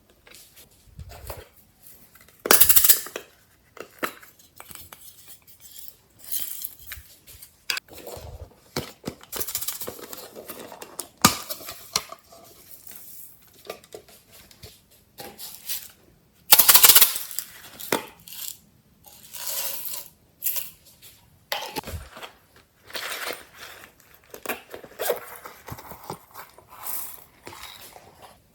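Hands squishing, poking and stretching glossy slime, making irregular sticky clicks, pops and crackles, with louder bursts about 2.5 s, 11 s and 17 s in.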